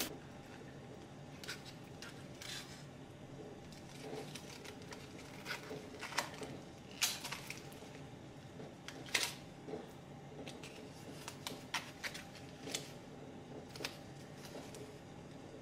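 Scattered light clicks and crinkles of food being handled at a counter: a plastic salad clamshell, aluminium foil around a baked sweet potato being opened, and a spoon scooping into a ceramic bowl, over a faint steady hum.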